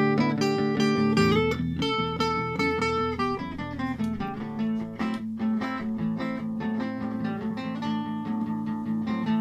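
Steel-string acoustic-electric guitar picked and strummed in a steady rhythm, layered over a looped guitar phrase played back by a looper pedal.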